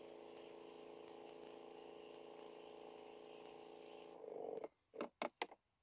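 Small electric sprayer pump running with a steady hum while it primes, then shutting off about four and a half seconds in. A few short clicks follow near the end.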